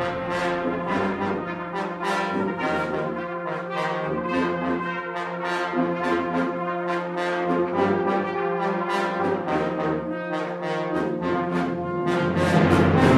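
Brass band playing: held chords under a steady run of short, accented notes, growing louder near the end.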